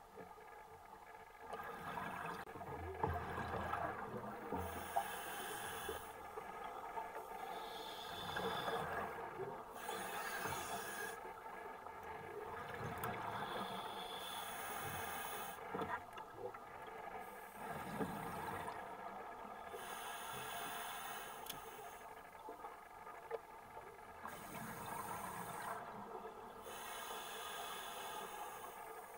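Scuba diver breathing through a regulator, heard underwater: a hiss on each breath in, alternating with the rush of exhaled bubbles, repeating every few seconds.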